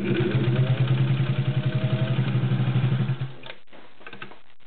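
Singer 201-2 sewing machine's potted direct-drive motor running as the needle stitches through three layers of suede and leather: a steady hum with a fast, even stitching rhythm of about eight strokes a second. It stops a little over three seconds in, followed by a few faint clicks.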